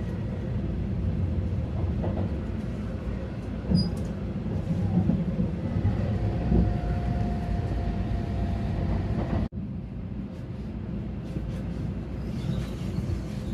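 Shinkansen bullet train running, heard inside the passenger cabin as a steady low rumble. A faint thin whine sounds from about six to nine seconds in, and the sound drops out sharply for an instant about nine and a half seconds in.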